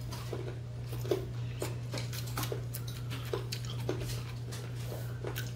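Scattered small clicks and smacks of children eating at a table, about two a second, over a steady low hum.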